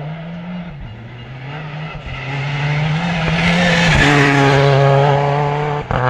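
Rally car engine accelerating hard up the stage toward the listener, rising in pitch between gear changes and growing louder to a peak about four to five seconds in.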